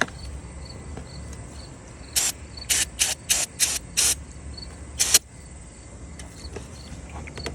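Aerosol electrical contact cleaner sprayed in short spurts, about six quick hisses in a row and a last one a second later, to loosen a stuck radiator fan housing. Crickets chirp steadily underneath.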